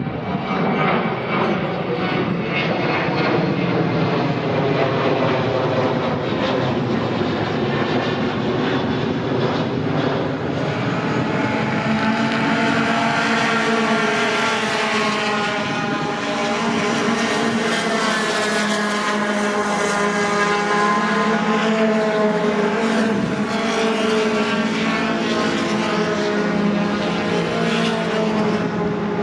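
Engines of several racing pickup trucks, V8s, running on the circuit. Their overlapping pitches rise and fall as they accelerate, shift and pass.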